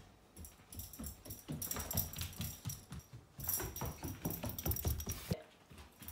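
Bernese mountain dog puppy running on a hardwood floor: irregular padding thuds and claw clicks of its paws. From about one and a half to five seconds in, a bright jingling rings over the footfalls.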